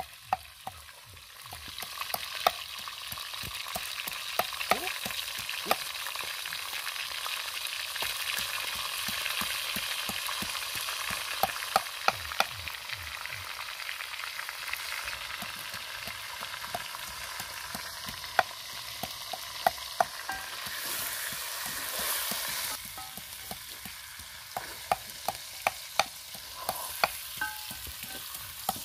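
Chicken pieces sizzling and frying in an earthenware clay pot over a wood fire while being stirred with a wooden spatula, with many scattered sharp clicks. The sizzle swells about a second and a half in and is brightest a little past two-thirds of the way through.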